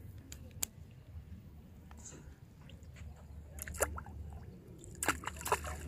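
Water splashing and plopping at the surface around a fishing float as a fish disturbs it, in short clusters over halfway through and again near the end.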